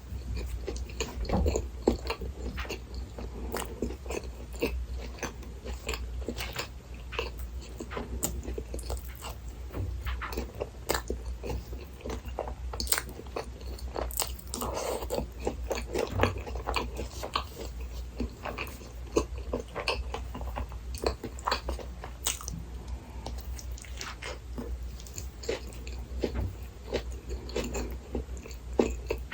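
A person biting and chewing a Burger King Texas Chili Whopper close to the microphone: a steady run of irregular mouth clicks and chewing noises over a low, steady hum.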